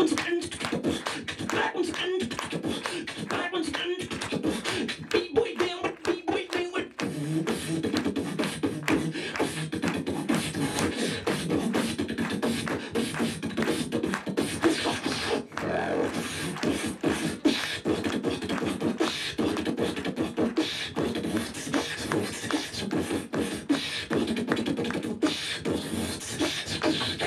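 Beatboxer performing into a cupped handheld microphone: rapid vocal kick, snare and hi-hat sounds in a continuous rhythm, with a low bass line coming in underneath about seven seconds in.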